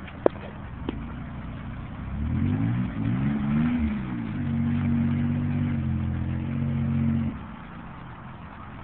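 Toyota SR5 4x4's engine idling, then revving up about two seconds in, dipping briefly, and holding a steady higher rev for about three seconds before dropping back to idle. A single sharp click sounds just after the start.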